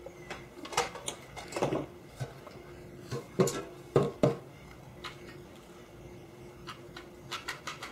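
Handling noise from test-fitting a wooden buttstock to an AK rifle's steel receiver: a few scattered knocks and light clicks of wood and metal parts being pushed together and set down, over a faint steady hum.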